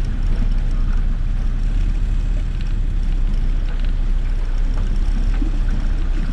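Floodwater sloshing and swishing as a vehicle pushes through knee-deep water, over a steady low rumble, with scattered small splashes.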